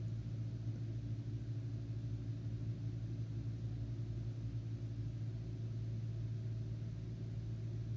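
Steady low hum with a faint hiss underneath, unchanging throughout: background noise picked up by the recording microphone.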